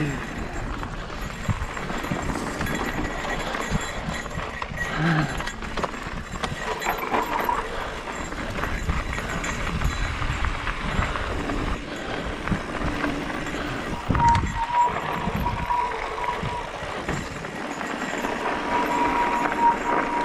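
Mountain bike rolling along a dirt singletrack trail, recorded on the rider's camera: tyre noise and bike rattles over a constant wind rumble on the microphone. A steady high whine comes in twice in the second half.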